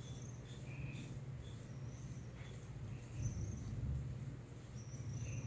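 Quiet outdoor background: a few short, high bird chirps scattered over a low steady hum.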